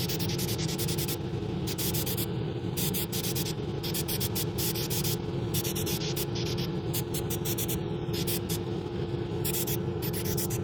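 Paint being sprayed inside a spray booth in many short hissing bursts, over the steady hum of a motor running.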